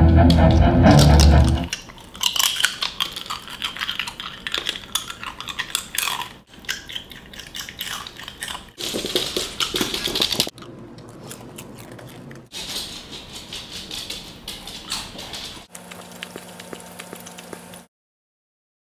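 Rock music with guitar and drums stops suddenly about two seconds in. After it come quieter, dense clicks and crackles in several short clips, fitting a miniature dachshund's claws clicking on a hard floor. The last clip holds a low steady hum, and then it goes silent.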